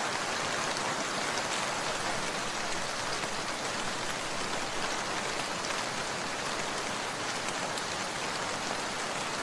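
Steady hiss of rain, with faint scattered drop ticks.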